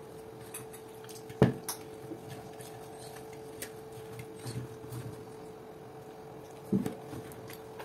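Milk being poured onto soaked coarse tapioca in a stainless steel bowl and stirred with a wooden spoon, with a sharp knock about a second and a half in and a duller thump near the end, and a few light clicks between. A faint steady hum runs underneath.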